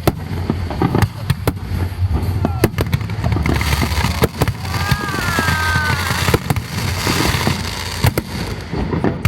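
Aerial fireworks going off: a rapid series of sharp bangs, with a stretch of dense crackling hiss in the middle.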